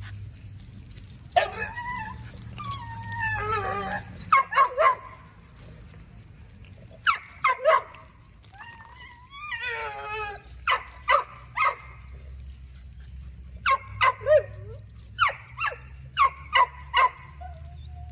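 American pit bull terrier barking in short sharp clusters of two or three, again and again, with high wavering whines in between.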